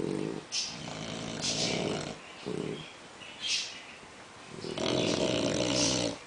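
An English bulldog and a French bulldog snoring. Four low snores alternate with higher hissing breaths, and the longest and loudest snore comes near the end.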